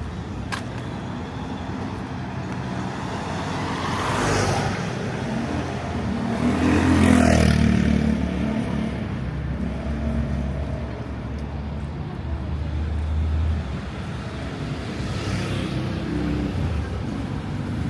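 Street traffic with motor vehicles passing close by and a low engine rumble underneath. Three vehicles sweep past, the loudest about seven seconds in.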